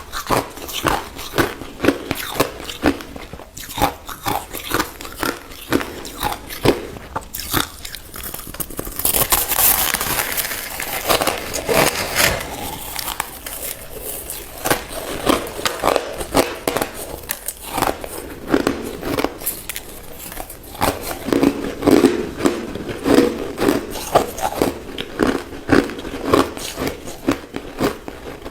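Crushed ice being bitten and chewed close to the microphone: a rapid, irregular run of crisp crunches and crackles. About nine seconds in, a denser, hissier stretch of crunching lasts two or three seconds.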